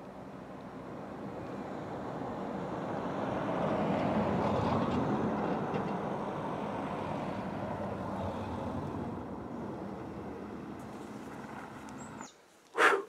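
A passing road vehicle: a rush of road noise that swells to its loudest about four seconds in and then slowly fades, before cutting off suddenly near the end. A short, loud sound follows right after.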